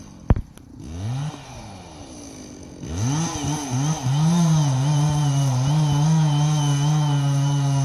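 Chainsaw's two-stroke engine coughing briefly about a second in, then catching about three seconds in. Its revs rise and dip unevenly before holding steady at high speed near the end. A sharp click comes just after the start.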